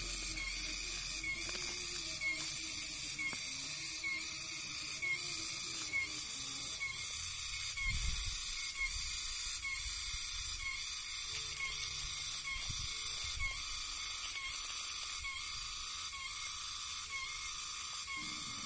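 A steady, high-pitched rhythmic pulsing at about two beats a second, with a brief low thud or rumble about eight seconds in.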